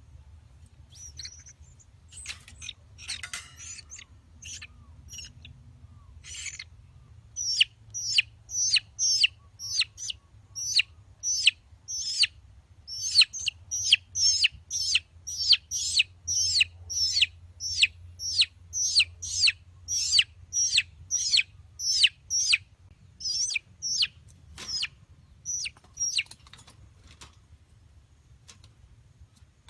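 A chicken chick peeping over and over, about two high, falling cheeps a second. The calls are faint and scattered at first, grow loud and steady after a few seconds, and stop near the end.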